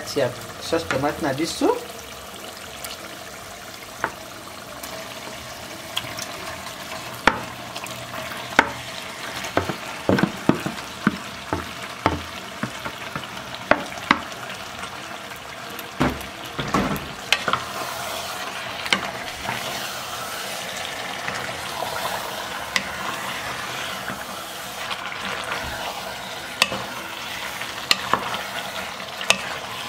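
Beef tripe cooking in a simmering tomato sauce in a pot, the sauce sizzling steadily while a wooden spoon stirs it, with irregular knocks of the spoon against the pot.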